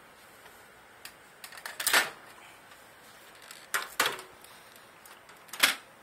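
Sharp plastic-and-metal clicks and clatters as a microwave oven's plastic control panel is handled against its metal chassis, coming in three short clusters, the loudest about two seconds in and the last near the end.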